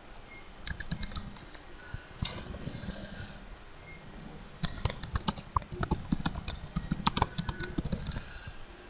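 Typing on a computer keyboard: a few scattered clicks, then a quick run of key presses from about halfway through.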